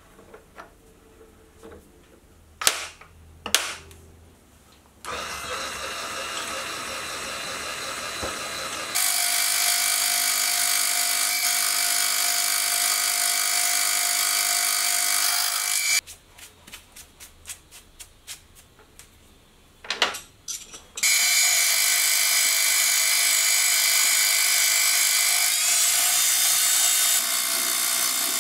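Benchtop milling machine fly-cutting the face of a steel block: a steady machining whine that comes in after a few seconds, swells once the cutter is in the steel, stops abruptly midway, then starts again for a second pass. Before each pass there are scattered clicks and knocks of the steel being handled in the machine vise.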